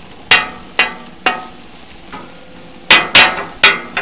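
Metal spatula scraping and knocking across a steel griddle plate, six sharp strokes, three in the first second and a half and three more near the end, over the steady sizzle of onions and minced meat frying.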